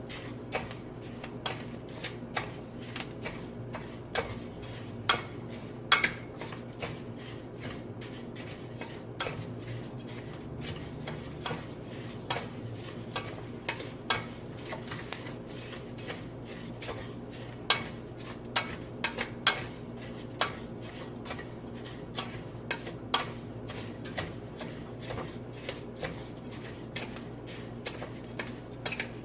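A spoon stirring and scraping raw rice as it fries in oil in a pan, with irregular clinks and scrapes against the pan as the grains are toasted golden. A steady low hum runs underneath.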